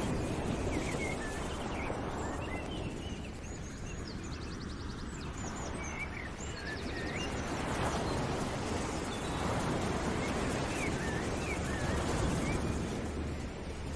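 Birds chirping and trilling over a steady rushing noise that swells and fades every few seconds, a nature ambience bed.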